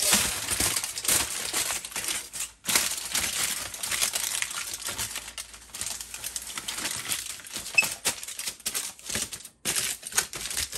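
Aluminum foil crinkling and crackling as it is handled and pressed into an air fryer basket, with two short pauses.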